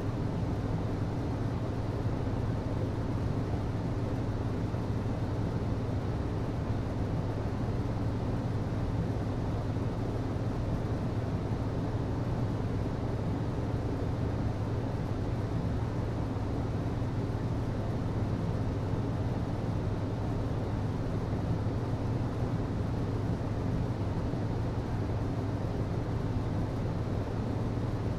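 HVAC system running steadily: a constant low hum with an even rush of air, unchanging throughout.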